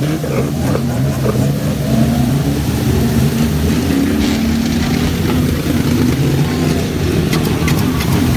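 Several small junior banger race cars' engines running and revving together as they race through standing water, with a steady mix of engine notes. A few sharp clicks come near the end.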